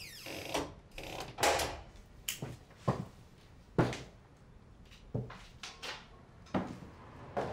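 Footsteps on wooden floorboards: a person's unhurried steps, roughly one a second, each a sharp knock, with a short scrape right at the start.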